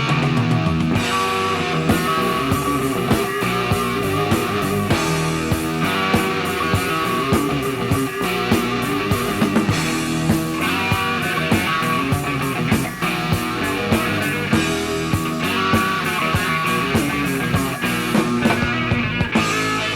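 Hard rock band playing an instrumental passage with electric guitar, bass and drums, with steady drum hits throughout.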